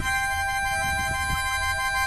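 Harmonica holding one long chord, several notes sounding together at a steady pitch, over a low rumble.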